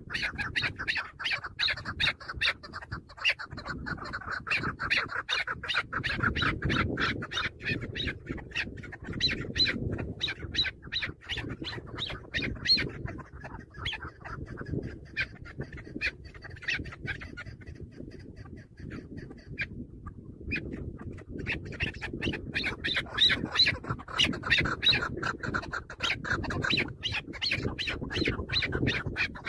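Chukar partridge calling: a fast run of sharp, repeated clucking notes, several a second, which thins out in the middle and picks up again strongly after about twenty seconds.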